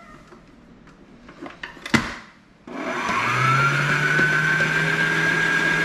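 A sharp click, then about two and a half seconds in an electric stand mixer's motor switches on. Its whine rises briefly as it spins up, then it runs steadily, mixing flour into lard for pastry dough.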